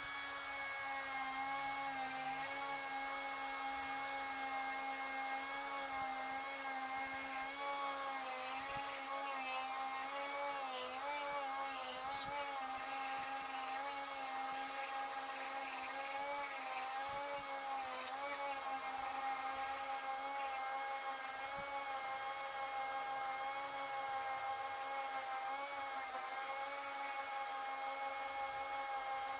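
Flexible-shaft rotary tool running with a steady whine as its bit shapes a wooden knife handle, the pitch dipping slightly now and then as the bit bears into the wood.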